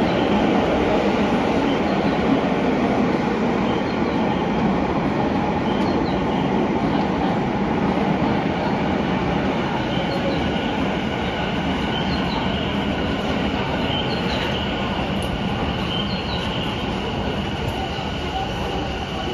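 Tokyu 5050 series electric commuter train pulling into an underground station platform and slowing. Its steady rumble eases off gradually, and a thin high squeal joins about halfway through.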